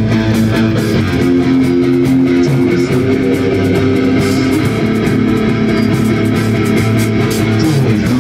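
Live rock band playing: electric guitars and bass holding long notes over drums, with cymbal hits throughout.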